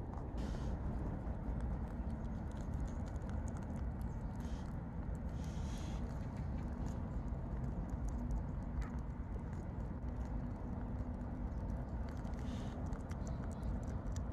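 Rabbits chewing food close up, heard as quick, crisp little clicks, thickest near the end, over a steady low background rumble.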